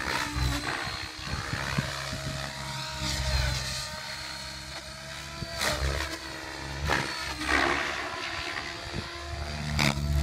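Compass Chronos radio-controlled helicopter flying aerobatics. The whine of its rotor and drive rises and falls in pitch, with several loud whooshes of the blades as it swings through manoeuvres.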